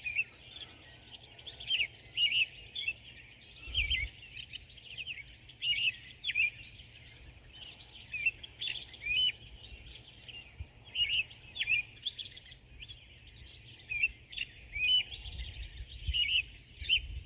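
A bird singing before dawn: a run of short, varied chirps and whistles with quick up-and-down sweeps, about one phrase a second, over a faint steady high hum.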